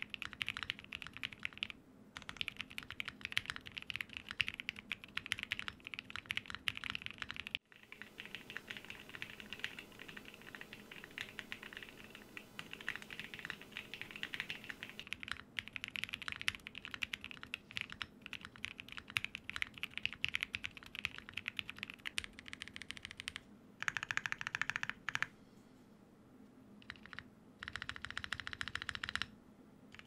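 Fast typing on a Tofu65 2.0 custom mechanical keyboard built with NK Cream linear switches, an aluminium plate and full foam (PE, plate and PCB foam), recorded on a dynamic mic: a dense run of key clicks with a few short pauses. It has the sound the builder calls quite creamy, not very deep but not light.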